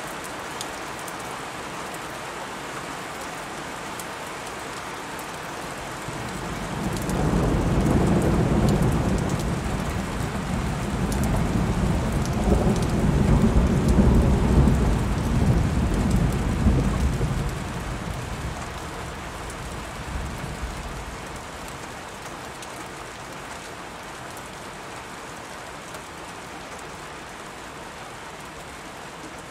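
Steady rain, with a long roll of thunder that swells in a few seconds in, rumbles on loudly for about twelve seconds and fades away.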